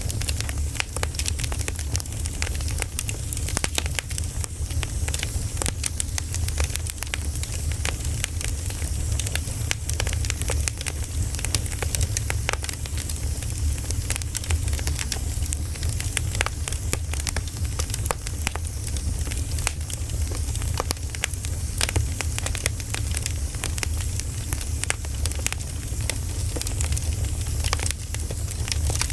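Firewood campfire burning: logs crackling and popping in many quick, irregular snaps over a steady low rumble.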